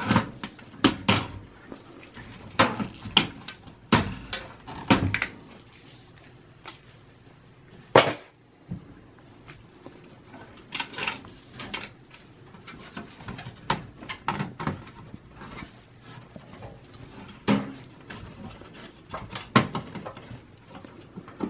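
Irregular sharp clicks and knocks of plastic and sheet metal as a computer's rear system fan is pried loose with a screwdriver and lifted out of its steel tower case. The loudest knocks come near the start and about four and eight seconds in.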